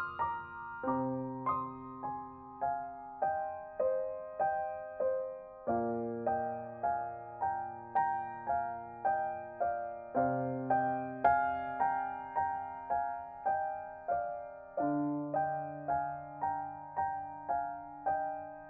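Solo piano background music: a gentle, evenly paced run of notes, about two a second, over a low held note that changes every four to five seconds.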